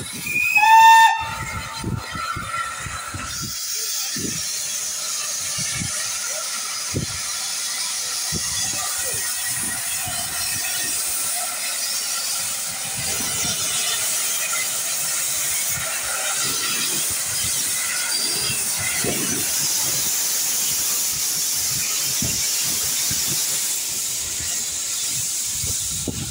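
SE&CR O1 0-6-0 steam locomotive No 65 gives one short whistle, slightly rising in pitch, then a steady hiss of steam from its open cylinder drain cocks as it starts away, with gusts of wind thumping on the microphone.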